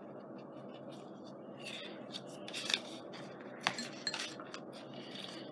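Small clicks and clinks of craft supplies being picked up and set down on a tabletop, a few sharp knocks among them, over a steady low hum.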